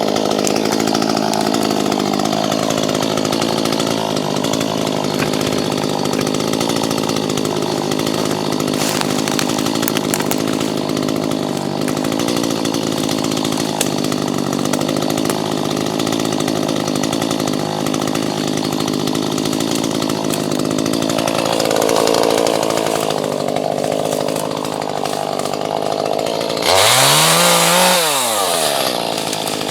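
Chainsaw running steadily under load as it cuts through an old log. Near the end the engine revs up sharply and drops back down.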